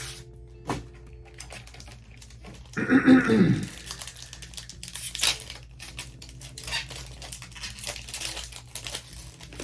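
Foil booster pack of Pokémon cards being crinkled and torn open, loudest about three seconds in, followed by light crackling and rustling as the pack and cards are handled.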